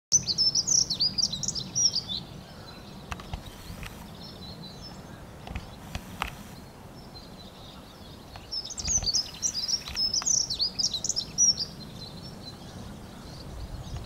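Dunnock singing: two fast, high, jingling warbles of about two to three seconds each, one at the start and one a little past the middle. A low background rumble runs underneath.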